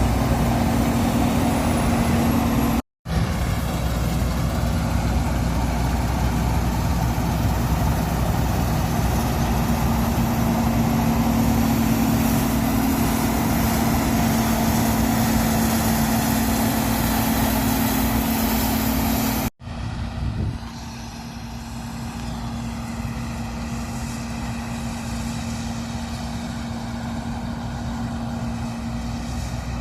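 John Deere T660 combine harvester running steadily, a constant engine drone with a held tone. The sound cuts out abruptly for a moment about three seconds in and again about two-thirds of the way through, and is somewhat quieter after the second break.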